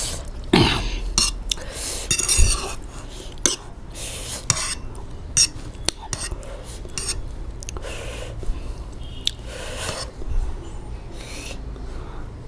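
Close-up eating sounds: chewing and slurping of spicy noodles, with spoon or fork clinking against the plate in irregular short clicks.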